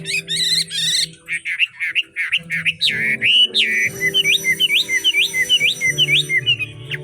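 Chinese hwamei singing: a fast trill, then a run of varied slurred whistles, then from about halfway through a short rising whistled note repeated two or three times a second.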